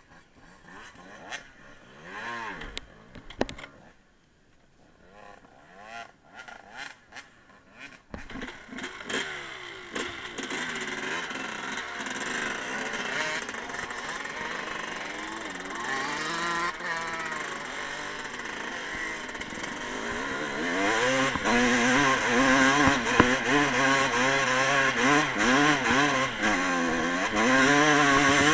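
Motocross dirt bike engine, faint at first amid scattered knocks, then from about eight seconds in running and revving up and down as the bike rides off-road. It grows louder about twenty seconds in.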